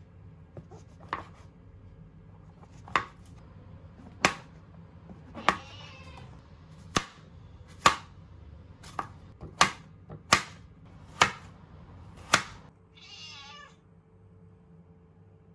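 Kitchen knife slicing vegetables on a plastic cutting board: about eleven crisp knocks at an uneven pace, roughly one a second. Near the end a tabby cat gives one short meow, begging for meat.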